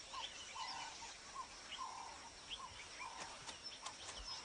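Birds calling in the bush: a short call repeated roughly every half second, with scattered higher chirps over a thin steady high-pitched hum.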